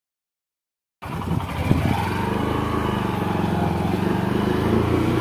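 Silent for about the first second, then a motorcycle engine running steadily at low revs as the bike moves off.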